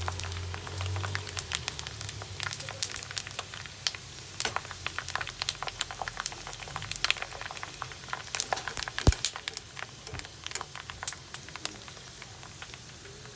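Pork rind chicharon frying in hot oil: dense, irregular crackling and popping, with one sharp pop about nine seconds in. A low hum fades out over the first two seconds.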